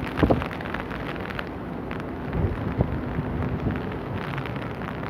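Rain falling steadily with wind buffeting the microphone, and a few dull knocks, one about a quarter second in and a couple more around two and a half seconds in.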